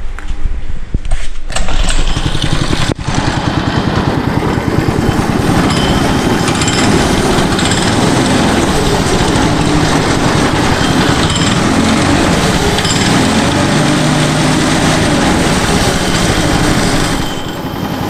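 Small single-cylinder go-kart engine pull-started, catching within the first couple of seconds, then running steadily with its speed rising and falling a little. The ignition is live through a newly wired remote kill-switch module.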